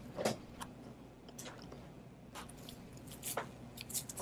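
Scattered small clicks and light scrapes of a plastic pry tool working at a smartphone's logic board, popping flex-cable connectors off their sockets. About ten short clicks, the sharpest just after the start.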